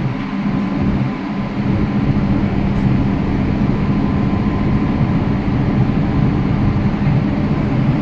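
An engine running steadily at a constant speed: a continuous low drone with a faint steady high tone over it.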